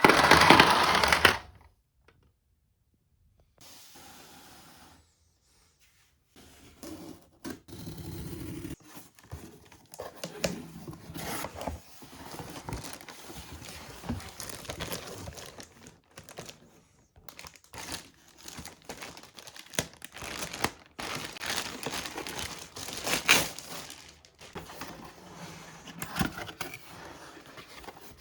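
Irregular crinkling, tearing and scraping of toy packaging being handled up close, running on in uneven bursts. It follows a short loud sound at the very start and a moment of near silence.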